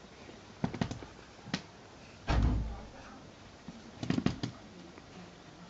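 A few soft clicks and knocks, with a dull, deep thump a little over two seconds in and a quick cluster of clicks near the end.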